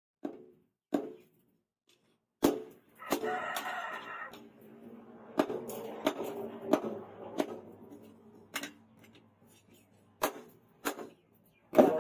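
Hand hammer striking a red-hot leaf-spring steel blade on a steel post anvil: about a dozen sharp blows at uneven intervals, roughly one a second. A rooster crows once about three seconds in.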